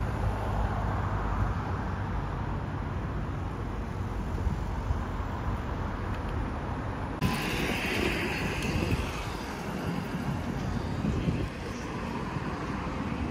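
Steady road traffic noise with cars passing close by, a low rumble under a hiss of tyres and engines. The sound changes abruptly about seven seconds in, becoming brighter.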